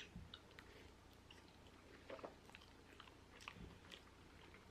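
Faint close-up chewing of sauce-covered French fries: scattered soft, wet mouth clicks at irregular moments, a little stronger about two seconds in and again past the three-second mark.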